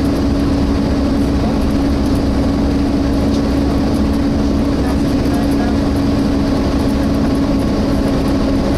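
Engine cooling fan of a Volvo B7TL double-decker bus giving a steady, hoover-like drone, heard from inside the moving bus over the rumble of the engine and road. The drone holds one pitch the whole time.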